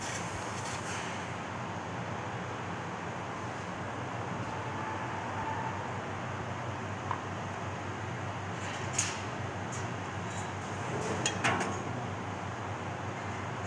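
CNC laser cutting machine running on a steel sheet: a steady noisy hiss and hum, brighter for about the first second, with a few brief sharp hisses later on.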